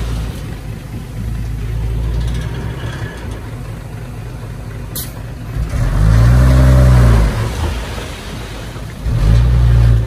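Heavy diesel engine running, revving up and back down about six seconds in, which is the loudest moment, and surging again near the end.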